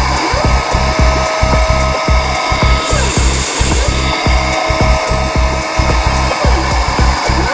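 High-speed spindle of a dental CNC milling machine whining at a steady high pitch. It spins down about three seconds in, a short hiss of air follows while it sits on the tool holder for a tool change, and it spins back up. Background music with a steady low beat plays underneath.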